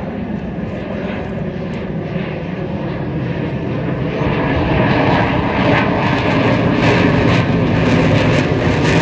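Aircraft engine noise of a military plane flying past, a steady roar that grows louder through the first half and then holds.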